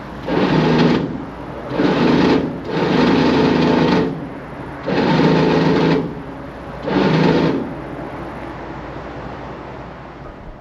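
A small motor-driven machine running in five short bursts, each about a second long, over a fainter steady low hum.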